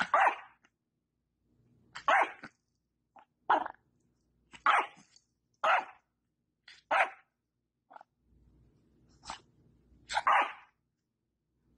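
Yorkshire terrier barking in short single barks, about ten of them spaced unevenly with gaps of up to a second and a half.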